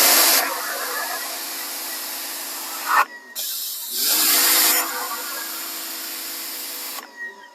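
Pressure washer spraying in two long bursts, with a short break about three seconds in: a loud hiss from the water jet over the steady hum of the pump.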